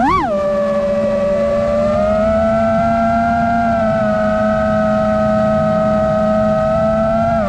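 FPV racing drone's motors and propellers whining: a quick swoop up and back in pitch right at the start as the throttle is punched, then a steady whine.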